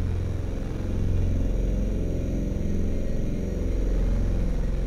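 Amiga demo soundtrack in a dark, deep drone passage: steady low bass tones and rumbling synth layers, with little in the higher range.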